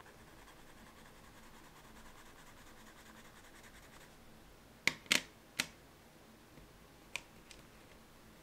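Caran d'Ache Neocolor II wax pastel scribbled across sketchbook paper, a faint dry scratching, then a few sharp clicks about five seconds in and twice more about seven seconds in as pastel sticks are handled at the metal tin.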